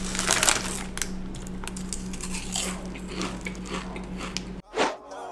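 Quest protein chips being crunched and chewed close to the microphone, with the chip bag crinkling as a hand reaches in. Near the end it cuts off and a short whoosh follows.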